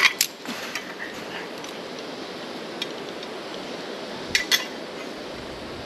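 Zip-line metal hardware clinking: a sharp clink at the start, another just after, and two more close together about four and a half seconds in, over a steady background hiss.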